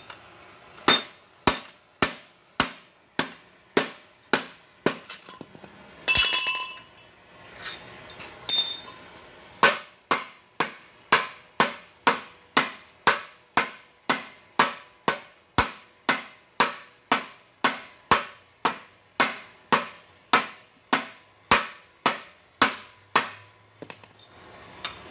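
Steady run of sharp hammer taps, about two a second, driving a heated harmonic balancer onto an LS V8's crankshaft snout. There is a pause near the middle with one brief clatter, then the tapping picks up again and runs on until near the end.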